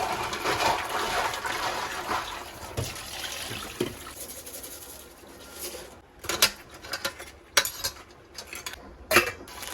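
Water running steadily for about four seconds, then a series of sharp clinks and knocks of dishes and utensils.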